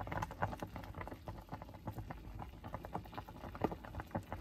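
A pot of sinigang soup at a hard rolling boil with the lid off, a dense irregular crackle of bubbles popping. The broth is foaming up to the rim, on the point of boiling over.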